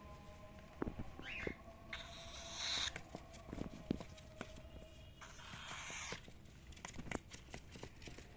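Cockatiel giving a short rising chirp, then two harsh, hiss-like calls about a second each, among scattered light clicks and taps.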